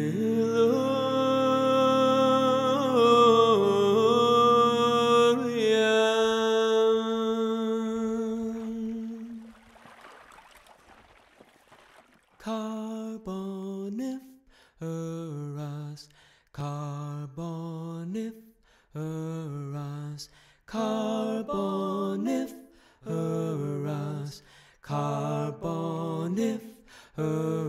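Wordless vocal music: a long held humming tone with slight pitch bends fades out over the first ten seconds. After a short hush, a voice hums a string of short notes about a second each, with brief silences between them.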